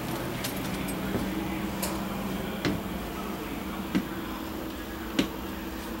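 Footsteps climbing into a travel trailer: three dull knocks about a second apart on the fold-out entry steps and floor, over a steady low hum.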